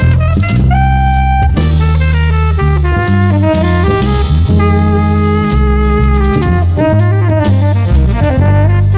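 Instrumental jazz: a horn lead holds long notes over a drum kit with cymbals and a steady low bass line.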